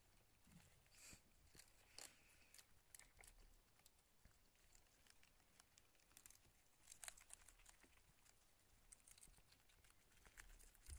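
Near silence with faint, scattered rustles and crinkles: hamsters moving about in wood-shaving and newspaper bedding.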